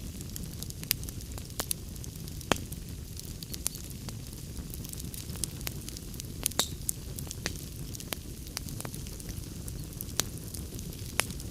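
Wood log fire burning in a fireplace: a steady low rumble of flames with frequent irregular crackles and sharp pops. The loudest pop comes about two and a half seconds in, and a brief high hiss follows a pair of pops past the middle.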